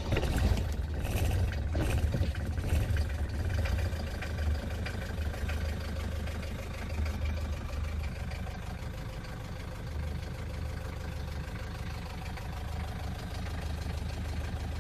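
Four-cylinder diesel engine of a 1972 Mercedes 220 D (W115) being started after glow-plug preheating: it starts abruptly, louder and uneven for the first few seconds, then settles into a steady idle.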